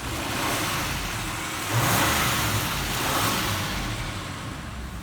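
Bentley's Audi 4.0-litre twin-turbo V8 running with a strong hiss, revved up about two seconds in and easing back afterwards, while it is being given a carbon-cleaning treatment for a carbon-related misfire.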